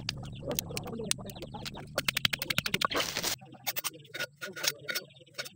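Wooden pestle knocking in a clay mortar as chillies and garlic are pounded, with a quick even run of sharp knocks about two seconds in. After about three seconds, sparser clicks come as a knife slices a tomato in the hand over the mortar.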